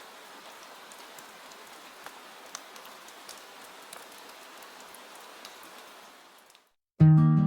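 Soft, steady rain with scattered drop ticks, fading out near the end. It is followed by a short silence, then acoustic guitar music starts abruptly just before the end.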